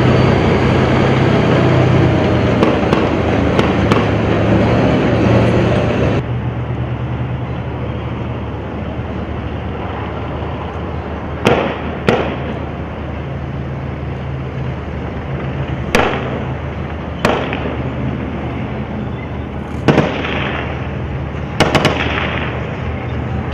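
Gunfire in an urban firefight: about seven sharp shots in the second half, singly and in quick pairs, over a steady vehicle engine rumble that is loudest for the first six seconds.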